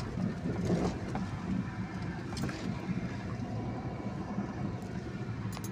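Car running, heard from inside the cabin: engine and road noise as a steady low rumble, with a couple of faint clicks.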